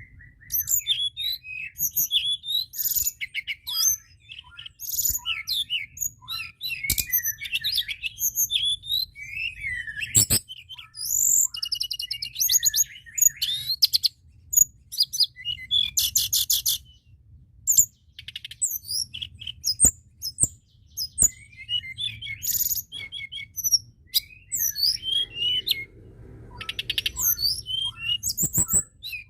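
Tledekan gunung songbird singing a fast, busy song of high chirps, rapid trills and quick whistled slides, over a faint low hum.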